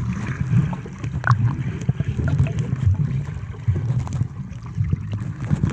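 Muffled underwater sound in a swimming pool, heard through a submerged camera: a steady low rumble of moving water with scattered small clicks as swimmers kick past.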